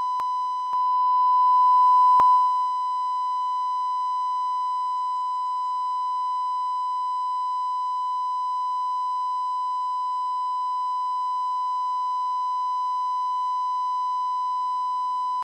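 Steady broadcast test tone that goes with colour bars, one unbroken high beep. It swells louder for about a second and a half near the start, with a couple of faint clicks.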